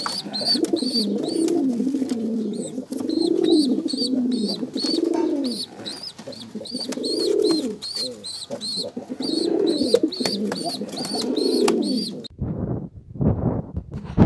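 Adult male domestic pigeon cooing over and over, each coo about a second long and rising and falling, with a fast, even high chirping above it. Near the end the cooing stops and a few low thumps take over.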